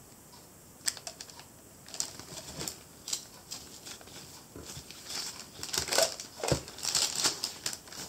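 Crinkling and rustling of a disposable glove and the paper sheet covering the table as a small painted figure is handled and turned, with light clicks. It starts about a second in and gets busier in the second half.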